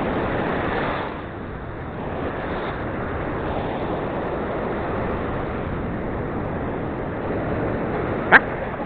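Steady rumbling wash of ocean surf and wind on the microphone, with a single sharp click near the end.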